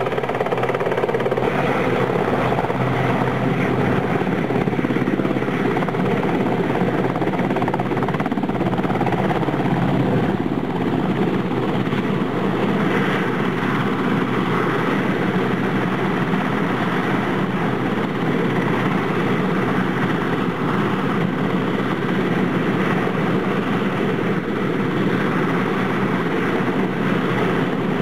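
Westland Sea King helicopter's twin turbine engines and main rotor running steadily.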